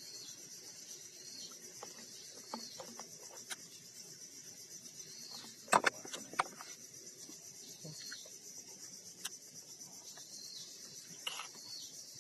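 Steady high-pitched insect chorus, with scattered faint clicks and one sharp knock about halfway through.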